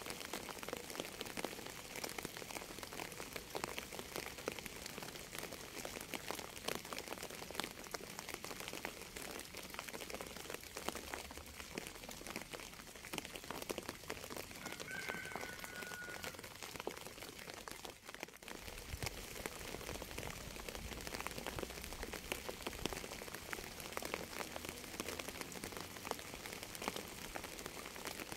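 Rain falling steadily, a dense patter of many small drops, with one brief faint high tone about halfway through.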